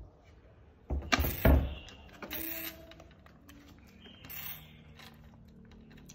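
A few sharp knocks about a second in, then quieter clicks and light clatter, as a baby monkey handles the plastic-and-wire hamster cage.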